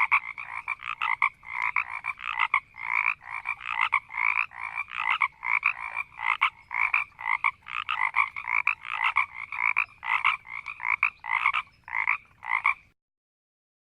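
Marsh frogs croaking and growling, a dense run of repeated calls at about two a second. The calls cut off abruptly near the end.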